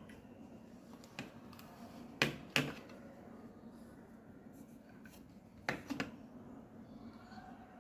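A few sharp clicks or knocks over a faint steady hum: a small one about a second in, a loud close pair just after two seconds, and another pair near six seconds.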